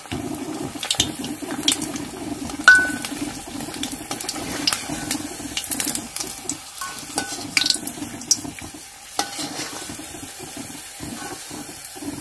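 A battered fritter deep-frying in hot oil in a kadai, the oil sizzling steadily. A perforated metal slotted spoon clinks and scrapes against the pan several times as it turns the fritter and lifts it out, a few of the knocks ringing briefly.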